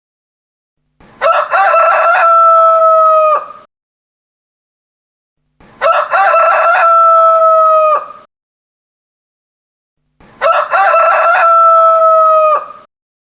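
Rooster crowing three times, about four and a half seconds apart. Each crow lasts about two and a half seconds, starting with short broken notes and ending on a long held note.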